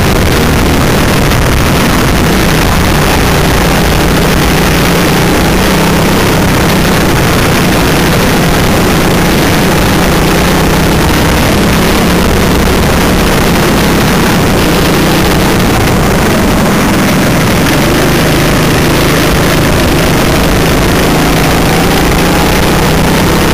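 Racing kart engine running hard on track, heard from onboard and loud, its pitch wavering with the throttle and rising near the end.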